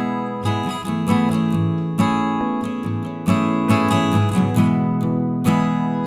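Background music: acoustic guitar strumming chords, with a strum about every half second to second.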